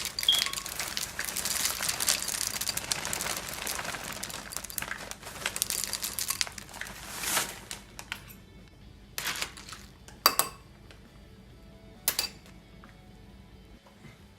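Rustling and crinkling for about the first seven seconds, then a few separate sharp knocks or clacks, with music underneath.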